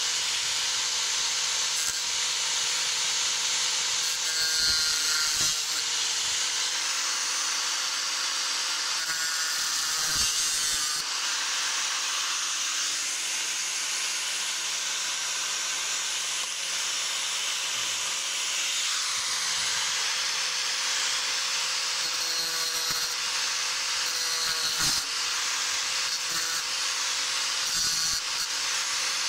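Small electric saw with a spinning cutting disc cutting through the roof of a BMW coupe scale model: a continuous grinding noise over a steady motor hum, with a few brief knocks.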